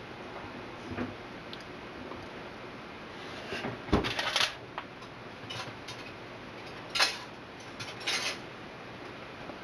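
Kitchen clatter: three short bursts of clinking and rattling, the first and loudest about four seconds in.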